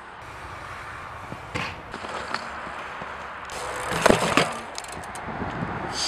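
BMX bike and rider crashing onto a dirt jump: a cluster of sharp clattering impacts about four seconds in, after a lighter knock earlier on.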